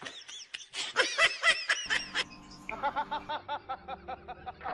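A person laughing hard in quick, high-pitched bursts. After a short break, a second bout of rapid laughter comes at a lower pitch.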